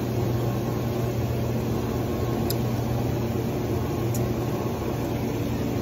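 Steady mechanical hum with one strong low tone, from a running motor-driven appliance, with two faint ticks partway through.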